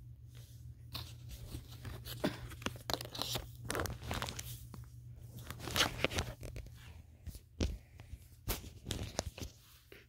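Crackling and crinkling as a new cable and its packaging are handled and unwrapped, with a few sharp knocks in the second half as the phone is moved and bumped.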